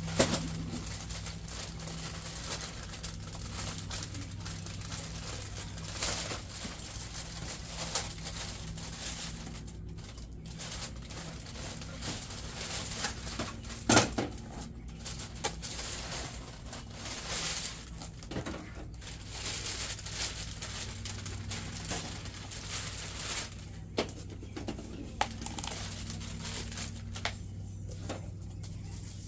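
Kayak parts and packaging being handled during assembly: rustling and crinkling, with scattered sharp clicks and knocks, the loudest about fourteen seconds in, over a steady low hum.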